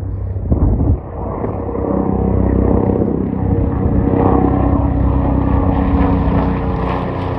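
Bell 429 GlobalRanger twin-turboshaft helicopter taking off and passing low and close: rotor and turbine noise that builds, growing louder and brighter in the treble as it approaches. A brief loud low buffet about half a second in.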